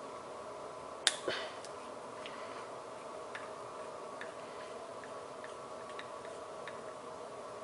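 Small clicks and faint, irregular ticks of a hand hex driver turning screws out of a plastic RC differential case, the sharpest pair of clicks about a second in.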